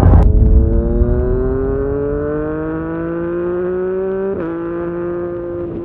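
An engine accelerating: after a sharp hit at the start its pitch rises steadily, then breaks briefly about four seconds in and settles a little lower, holding steady.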